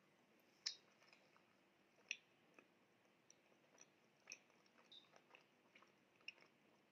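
A person chewing a bite of cream-filled croissant: quiet chewing broken by a few short, sharp crackles of the flaky pastry, the loudest near the start.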